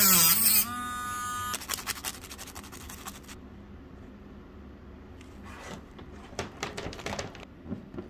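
A rotary tool with a small abrasive cut-off wheel cuts through thin 3/16-inch aluminium tube. Its high whine drops in pitch under the load of the cut for the first half second, then runs steadily and stops about a second and a half in. From about five and a half seconds in come light clicks and taps from handling the cut tube.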